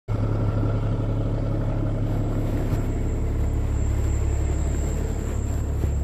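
A vehicle engine running nearby: a steady low rumble that holds even throughout.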